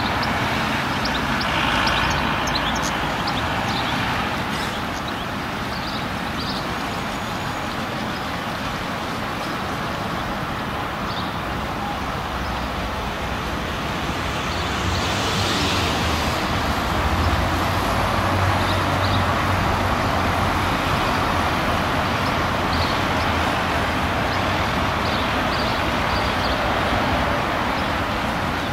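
Zillertal Railway diesel railcar running as the narrow-gauge train approaches at low speed, a steady engine and rolling noise with a low hum that grows louder about halfway through.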